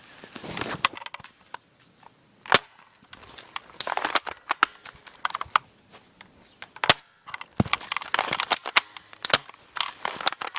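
Airsoft guns firing, sharp single pops spaced irregularly, a few close together near the end, with rustling of movement between shots.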